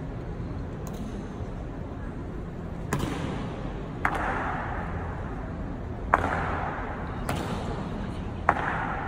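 Sharp knocks from an honor guard's rifle-and-boot drill, each leaving a ringing echo off the marble walls: four loud ones a second or two apart, the loudest a little past the middle, with fainter knocks between. A low crowd murmur runs underneath.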